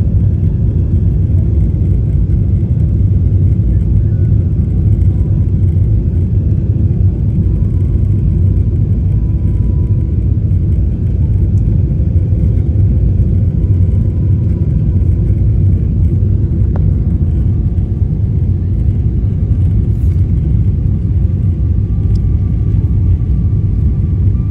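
Jet airliner cabin noise during the landing approach, with flaps extended: a loud, steady low rumble of the engines and the airflow past the fuselage, heard from a window seat over the wing.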